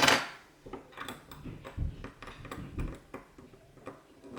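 Kaba padlock and lock-picking tools being handled: a louder metallic clatter right at the start, then scattered light clicks and taps.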